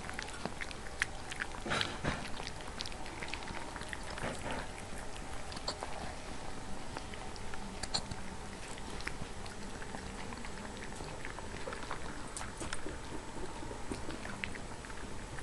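Siberian husky puppies eating from a metal bowl: irregular chewing and many small clicks as they feed and jostle.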